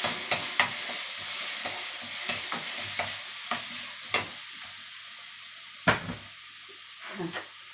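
Food sizzling in butter and oil in a frying pan as it is stirred, with a utensil knocking and scraping against the pan over and over. The sizzle slowly dies down, and the loudest knock comes about six seconds in.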